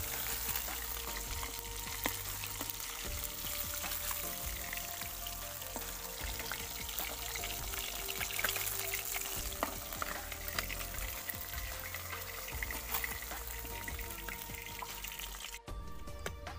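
Fish pieces sizzling as they deep-fry in hot mustard oil in a kadai, with the clicks and scrapes of a metal spatula lifting them out. The frying cuts off suddenly about a second before the end.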